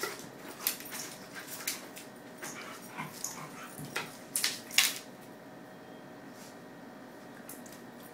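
A miniature schnauzer and a standard schnauzer puppy play-fighting: scuffling, with scattered sharp clicks of claws and paws on a wooden floor. The scuffling is busiest over the first five seconds, with the loudest knock about five seconds in, then it quietens.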